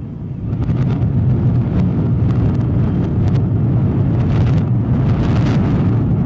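Loud low rumble with crackling from high-rise apartment towers collapsing in a demolition implosion, played backwards. It swells over the first second and then holds steady.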